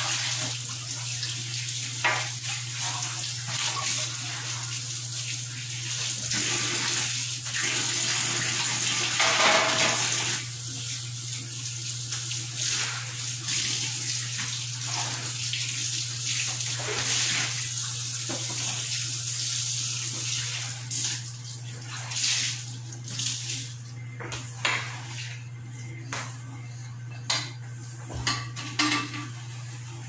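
Tap water running into a sink while a clear refrigerator shelf is rinsed and scrubbed by hand, with knocks of the shelf against the sink. About two-thirds of the way through the running water dies down and separate clatters of items being handled take over.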